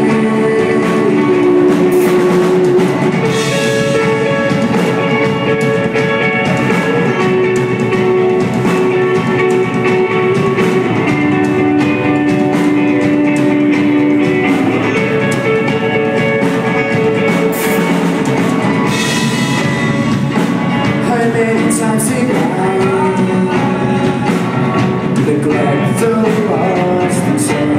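Live rock band playing: a male singer over electric guitar and drum kit, with held, gliding sung notes.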